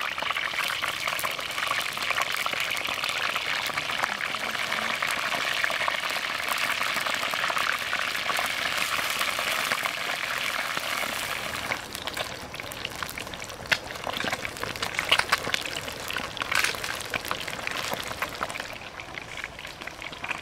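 Whole fish deep-frying in hot oil in a wok: a dense, steady sizzle. About twelve seconds in the sizzle drops away to a quieter crackle with a few sharp pops.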